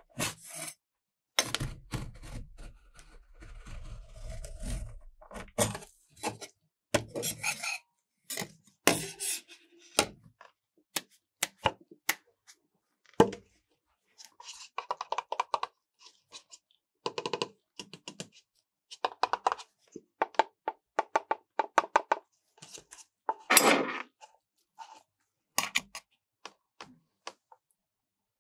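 Metal spatulas working on the steel cold plate of a rolled-ice-cream station: scraping in the first few seconds, then irregular knocks and quick runs of rapid chopping taps.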